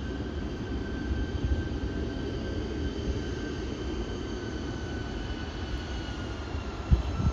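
Embraer E175 regional jet taxiing, its twin GE CF34 turbofans giving a steady whine at taxi power over a low rumble. The whine's pitch drops slightly near the end, and there is a brief low thump just before the close.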